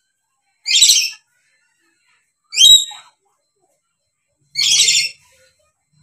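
Dusky lory giving three short, shrill calls about two seconds apart.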